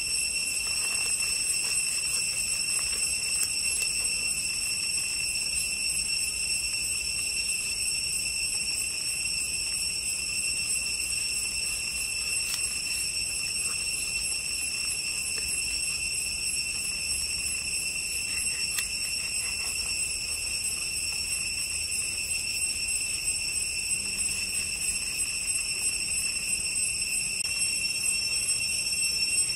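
A steady high-pitched whine holds unbroken throughout. Under it are a few faint scrapes of a knife cutting through fish flesh and along the scales on a wooden board.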